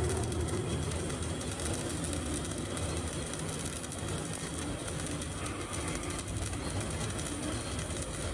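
CO2 MIG welding arc burning steadily on a vertical-up (3G) weld, with a continuous crackle and hiss.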